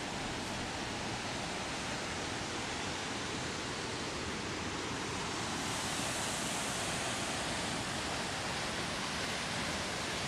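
Waterfall falling water, a steady, even rush with no breaks.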